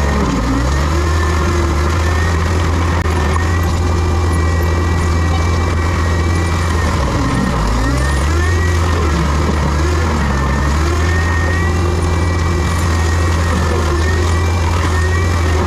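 Tracked forestry mulcher running with a steady low diesel drone and a wavering high whine on top. The engine note dips briefly a few times.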